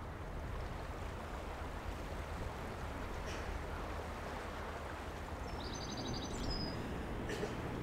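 Outdoor riverside ambience: a steady low rumble and noise haze, with a few short high bird chirps about six seconds in.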